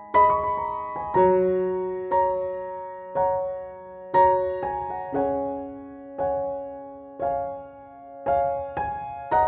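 Background piano music: slow, gentle chords struck about once a second, each left to ring and fade.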